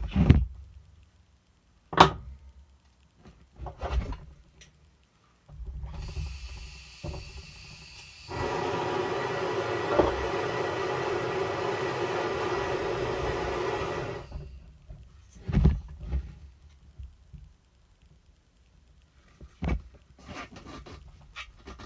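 Petri dishes and a thin transfer tool being handled inside a still-air box, giving scattered light knocks and clicks. In the middle a loud, steady hiss with a hum runs for about eight seconds and cuts off suddenly; its source is unclear.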